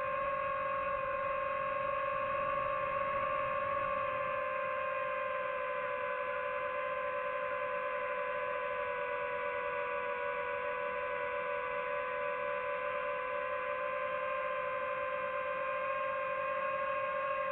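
DJI FPV drone's motors and propellers whining steadily in flight, the pitch drifting slightly lower and then back up as the throttle changes.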